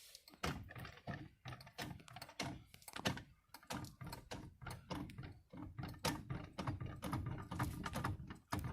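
A jack being pumped to push a car's dented roof back up: a steady run of short clicks and knocks, about two a second, as the roof moves slowly.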